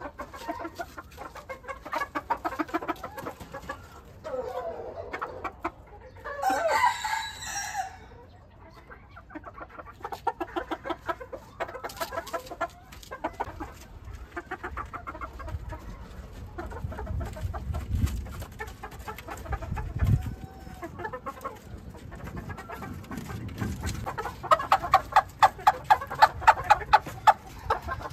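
Ko Shamo bantam gamefowl clucking in runs of quick, repeated calls, with one rooster crow about six to eight seconds in. Near the end comes a fast, loud burst of clucking.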